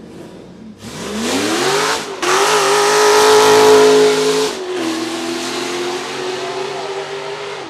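Off-road race buggy launching from the start line under full throttle. The engine revs climb steeply, then break twice for upshifts, and after each shift it pulls steadily at a lower pitch, loudest in the middle and easing slightly as it goes past and away.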